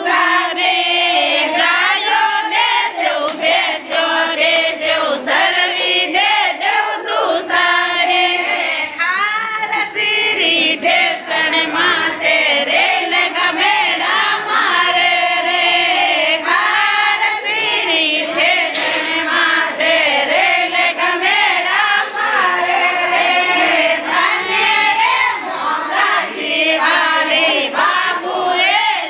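A group of women singing a Marwari folk song (gaaliyan, teasing wedding songs) together, many voices at once.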